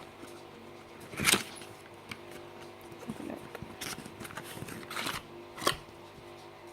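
A plastic skincare cream container being handled while it is worked open: soft handling noise with a few sharp plastic clicks, the loudest about a second in.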